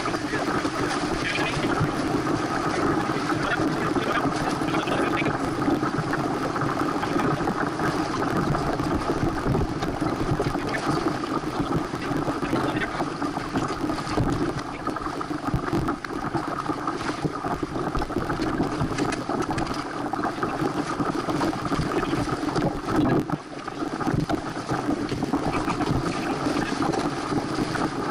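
Steady rushing of wind on the microphone and water streaming along a Santana 525 sailboat's hull while it sails, with a brief lull about 23 seconds in.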